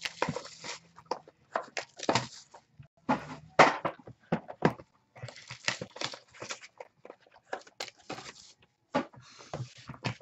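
Hands handling small cardboard trading-card boxes: irregular rustles, scrapes and light knocks, the sharpest about three and a half seconds in.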